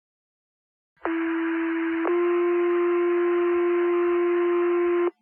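Two-tone sequential fire-department paging tones over a scanner radio, with radio hiss under them: starting about a second in, one tone lasting about a second, then a slightly higher tone held for about three seconds before cutting off. They are the alert tones that set off the station's firefighters' pagers for a page.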